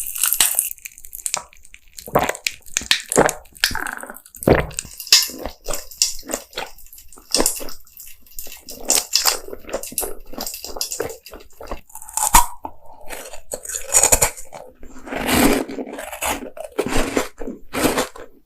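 Someone biting and chewing jelly candies close to the microphone, in short irregular bites and chews.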